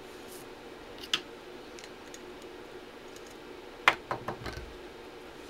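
Small metal parts of a rifle's trigger group clicking and tapping as they are handled during reassembly, with a screwdriver picked up off a wooden board. There is one sharp click about a second in, then a louder click near four seconds followed quickly by a few lighter taps.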